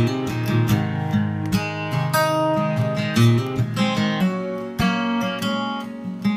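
Background music: acoustic guitar strumming.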